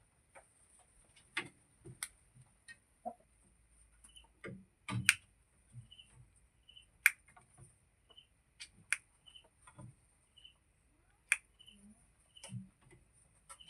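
Irregular sharp taps and clicks, roughly one a second, some much louder than others, with faint short high chirps in between: a chicken pecking.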